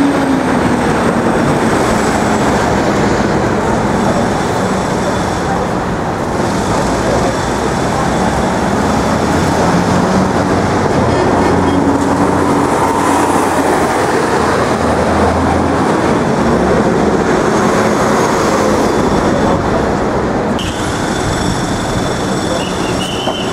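Loud, steady din of traffic and machinery, with a few faint tones coming and going.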